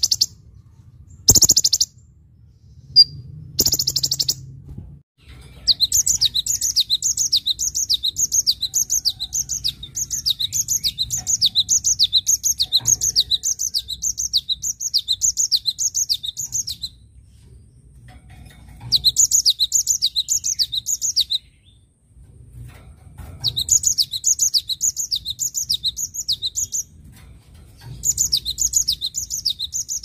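A kolibri ninja sunbird gives short bursts of high, rapid twittering song over the first few seconds. After a pause of about a second, a cinereous tit (gelatik batu) sings long bouts of its repeated high, quick falling notes, about three a second, with short breaks between bouts.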